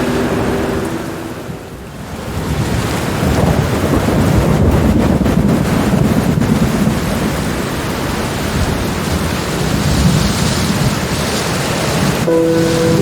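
Rolling thunder over steady rain: a low rumble swells up about two seconds in and keeps rolling under the hiss of the rainfall. Soft steady music tones fade out at the start and come back in near the end.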